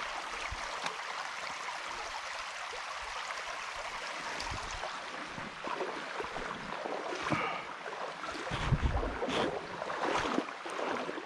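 Small creek's water running steadily. In the second half, irregular rustles and knocks join it, with a few heavy low thumps about two-thirds of the way in.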